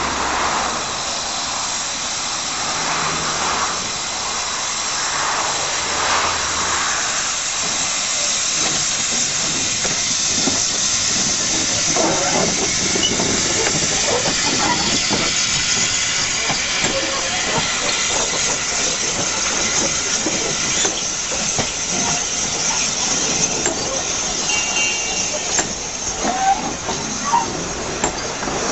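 Narrow-gauge steam locomotive approaching with regular exhaust beats and a steady hiss of steam, then its passenger carriages rolling past close by, wheels clicking and rattling on the track.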